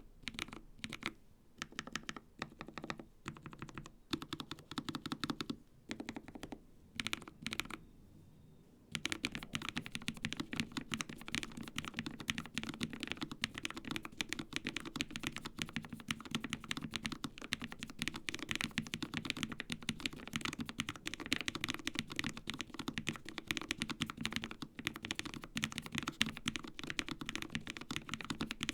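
Typing on a Lofree Flow mechanical keyboard with Kailh POM switches. For about the first nine seconds it comes in short bursts of keystrokes with pauses between them, then turns into fast, continuous typing.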